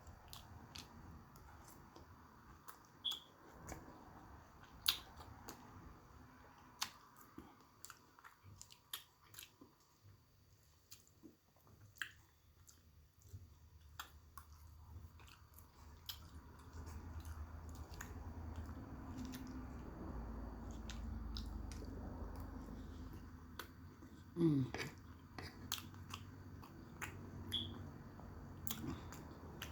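Close-up chewing and wet mouth sounds of a person eating steak and salad, with many small irregular clicks. A brief falling-pitch sound about three-quarters through is the loudest moment.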